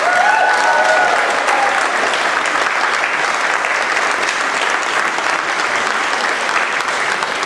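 Audience applauding steadily: a dense, even clapping.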